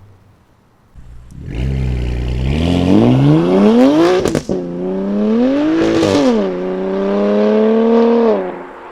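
BMW S55 twin-turbo straight-six through a titanium equal-length, valved catback exhaust, accelerating hard from about a second in: the revs climb, break with a sharp crack at an upshift, climb again, drop at a second shift, then hold and rise slowly before the throttle is lifted near the end.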